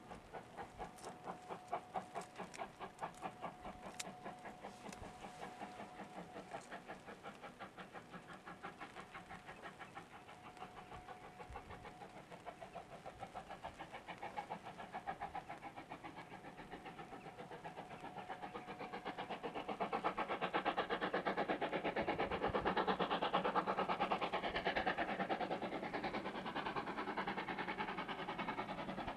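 Steam locomotive working hard as it approaches, its exhaust chuffing in a quick, even rhythm. The chuffing grows louder about two-thirds of the way through as the engine draws near.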